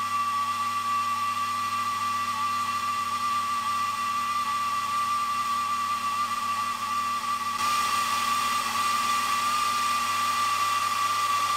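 Milling machine spindle running with a steady high whine as its cutter drills a hole into a round metal workpiece, with the audio sped up four times. A hiss grows louder about two-thirds of the way through.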